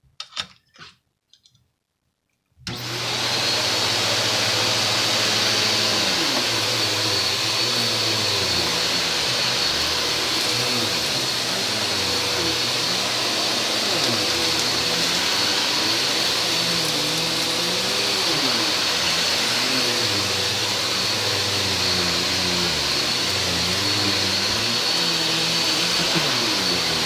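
Koblenz Endurance U-800 upright vacuum cleaner switched on after a few short clicks and running steadily over carpet. It gives a steady high whine over a lower hum that wavers up and down in pitch.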